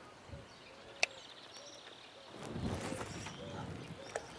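A baitcasting rod and reel being cast. There is a sharp click about a second in and a brief fast whir from the spool, then a short rush of noise a little after two seconds in. Faint bird calls sound in the background.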